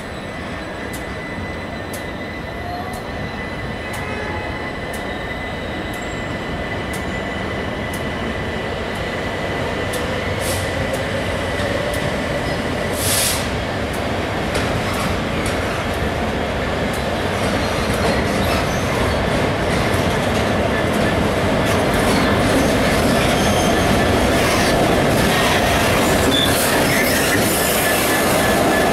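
GB Railfreight Class 66 diesel locomotive with its two-stroke V12 engine running, growing steadily louder as it approaches and draws alongside, with a thin steady squeal from the wheels. A brief hiss about halfway through.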